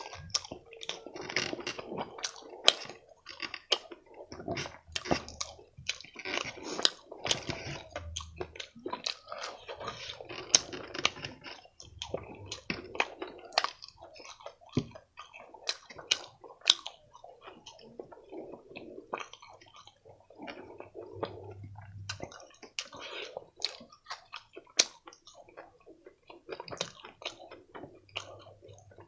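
A person chewing a mouthful of food close to the microphone: a steady run of wet mouth clicks, smacks and soft crunches.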